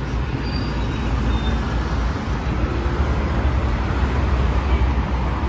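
Busy road traffic, with buses and cars running along the road in a steady low rumble.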